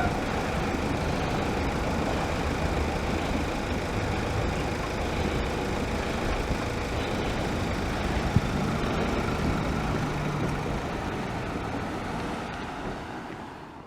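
Steady rumble of road vehicles starting to move over a railway level crossing once the bell has stopped, with a single sharp knock about eight seconds in. The sound fades out over the last two seconds.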